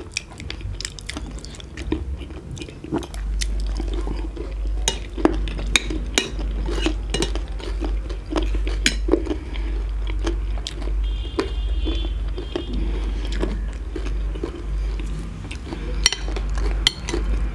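Metal spoons and forks clinking and scraping on plates in irregular clicks while two people eat chatpate and noodles, with some chewing. A short high-pitched squeak comes about eleven seconds in.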